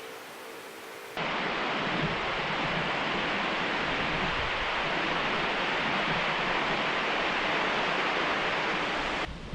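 Rushing water of the Kiyotaki River, a steady even rush like rapids or a small cascade. It cuts in abruptly about a second in and cuts off just before the end.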